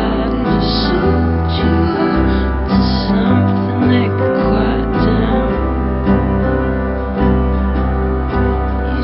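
Lo-fi singer-songwriter song playing: sustained keyboard chords over a steady bass line, with a soft sung vocal.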